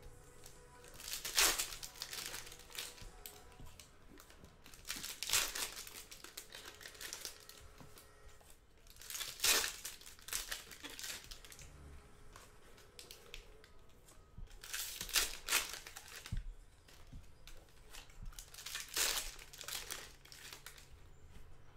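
Trading-card pack wrappers crinkling and tearing open. There are five loud bursts of crinkling a few seconds apart, with lighter rustling between them.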